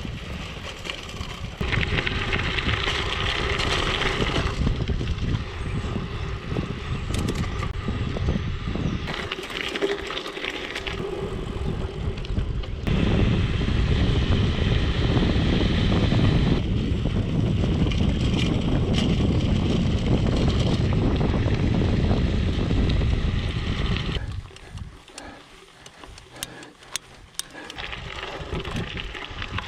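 Mountain bike tyres rolling over gravel with wind on the microphone, the noise changing in stretches as the surface and speed change. About 24 seconds in it drops for a few seconds to a quieter run with scattered sharp clicks.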